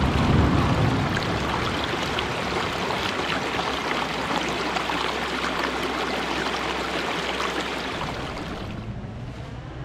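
Shallow woodland stream rushing and splashing over a low rocky cascade, a steady loud rush of water that fades away near the end.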